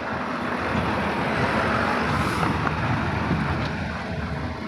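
Diesel truck pulling a tipper semi-trailer driving past close by, its engine growing louder, staying loud through the middle and easing off near the end.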